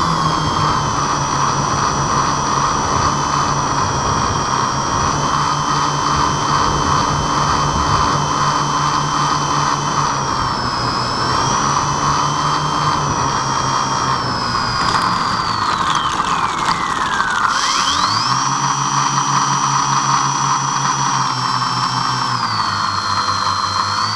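Twin electric motors and propellers of an RC airplane whining, heard from the camera on board. The pitch wavers a little, then falls away sharply about two-thirds of the way through as the throttle comes off around touchdown. It rises again a second or so later and holds while the plane runs along the ground.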